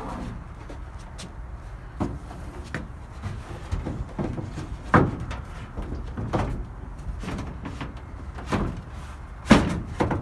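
Wooden knocks and thumps as a wooden shelf tray is handled and fitted into a beer-table frame: about a dozen irregular impacts, the loudest about five seconds in and again near the end.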